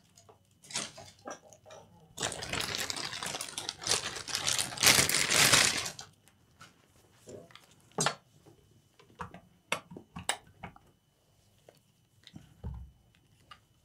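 Handling noise while a laptop charger is fetched and plugged in. There are a few seconds of rustling and rattling, then scattered clicks and knocks.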